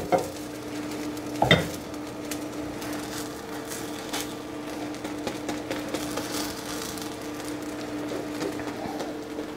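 Egg-white crepe cooking with a light sizzle in a nonstick frying pan over a steady hum. About a second and a half in, a silicone spatula knocks once against the pan.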